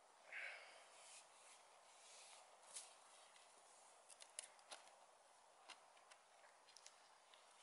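Knife shaving and scraping a wooden stick: faint scrapes and small clicks, with a short high squeak about half a second in.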